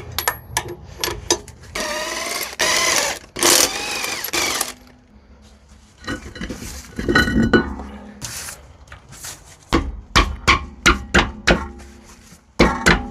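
Hand tools clanking, knocking and scraping on a van's rear disc-brake caliper during a pad change, with several sharp metal knocks in quick succession near the end.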